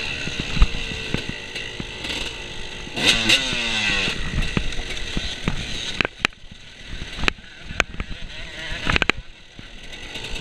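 Dirt bike engine running through a race, revving up with a rising surge about three seconds in, then easing off into a quieter stretch broken by several sharp knocks and clatter.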